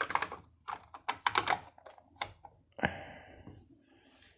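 A quick run of sharp clicks and taps from something being handled, then one louder knock about three seconds in that tails off with a short hiss.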